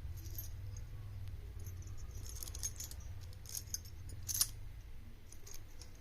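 Small metal objects clinking and jingling lightly in a few scattered clusters, over a steady low hum.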